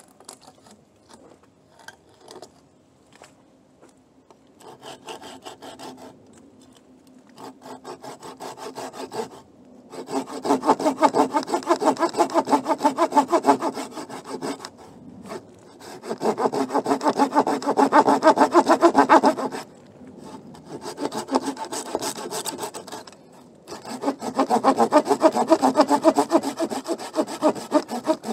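Hand saw cutting into a dead, fallen cedar trunk in quick, even strokes, in several spells with short pauses between them; it starts with a few light cracks and soft strokes, and gets louder about a third of the way in.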